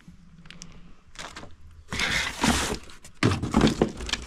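Cardboard box and plastic-bagged contents being handled: a rustle about two seconds in, then a run of knocks and rustles as items are pulled out of the box.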